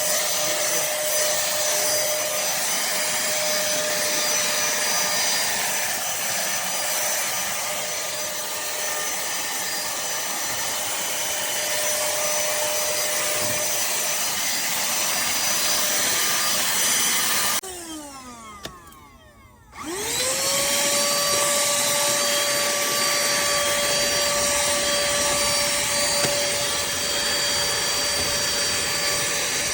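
Pemacom cordless handheld vacuum cleaner running steadily on carpet, its motor giving a steady whine over a rushing hiss. About two-thirds of the way through it is switched off, its pitch falling as the motor winds down. About two seconds later it is switched back on, the whine rising as it spins up to full speed.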